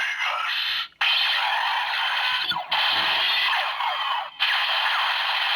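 Electronic sound effects and voice lines from a DX Break Gunner toy with the Dream Vegas shift car inserted, played through its small tinny speaker. The sound comes in four long stretches, each cutting off sharply.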